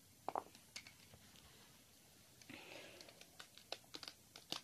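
Faint scattered clicks and a brief rustle about halfway through: rubber loom bands being lifted off the plastic pegs of a Rainbow Loom with the metal hook.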